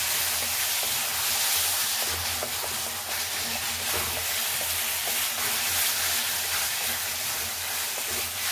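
Chopped onions, tomatoes and peas sizzling in hot oil in a kadhai as a spatula stirs and scrapes them, with a few light taps of the spatula on the pan.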